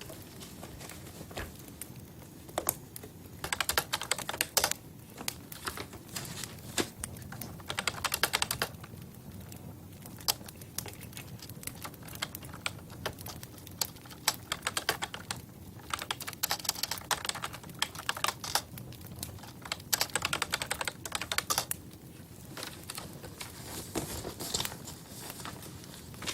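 Bursts of rapid light clicks and taps, several clusters of a second or two each, with scattered single clicks between them over a faint steady low hum.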